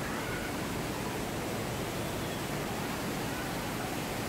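Floodwater pouring over a wall and ledge in a steady, unbroken rush of churning water.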